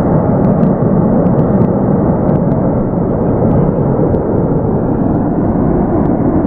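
A huge industrial fire burning with a loud, steady, rumbling roar, its flames shooting high from the plant.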